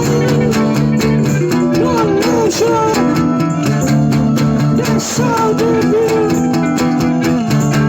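Music with guitar: a melody line that bends and wavers in pitch over held chords and a steady beat.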